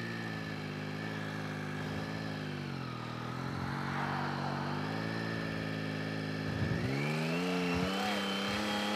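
Motorcycle's three-cylinder engine running under load, its pitch sagging about three seconds in, then climbing again near seven seconds and holding higher.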